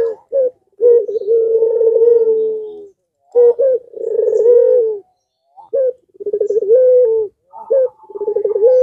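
Puter pelung, a domestic Barbary dove, cooing loudly and repeatedly: four phrases, each a short note followed by a long, drawn-out low coo.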